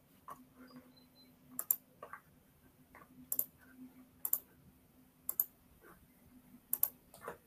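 Scattered clicks of a computer mouse, several of them about a second apart and some in quick pairs, over a faint steady hum.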